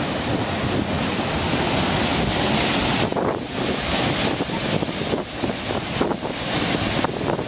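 Continuous rushing of Upper Yosemite Fall's water plunging down the cliff, with wind buffeting the microphone and making the noise rise and fall unevenly from about three seconds in.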